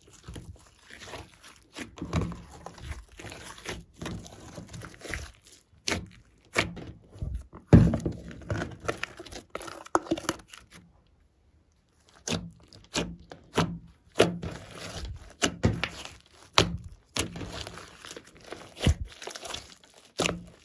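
Hands squeezing and kneading a large mass of glossy slime with clay and glitter mixed in: irregular wet pops, clicks and crackles as trapped air bursts from the slime. There is one sharp louder pop a little before the middle and a short gap of silence about halfway through.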